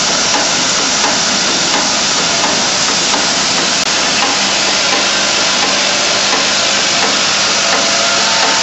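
Cable clip assembly machine running, its vibratory bowl feeder rattling a load of plastic cable clips: a steady, dense clatter with a faint low hum.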